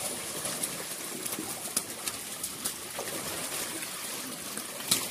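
Hundreds of catfish crowded in shallow water, writhing and sloshing with a constant wet splashing and dribbling, broken by scattered sharp slaps, the loudest just before the end, as a person wades among them.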